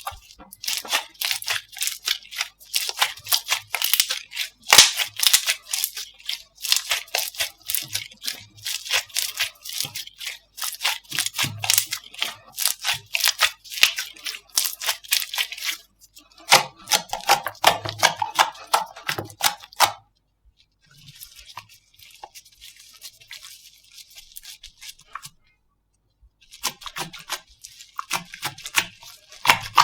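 Slime being squeezed and poked by hands, giving a dense run of crackling, popping clicks. The crackle turns fainter for a few seconds past the middle, stops briefly, then starts again.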